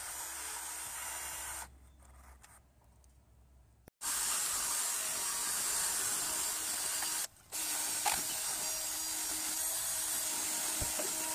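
Milwaukee cordless rotary tool running a small wire brush, scrubbing rust out of a brake caliper's piston bore with a steady whir that breaks off for a moment about seven seconds in. It follows a similar powered wire brush working on the caliper piston, which stops about two seconds in before a short quieter stretch.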